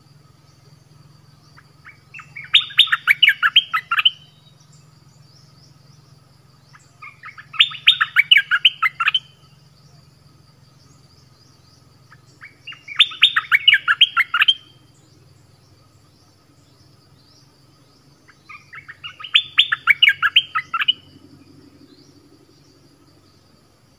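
Bulbul (นกดอกแตง) singing four bouts of quick, loud notes, each about two seconds long and roughly five seconds apart. A faint steady high tone runs behind.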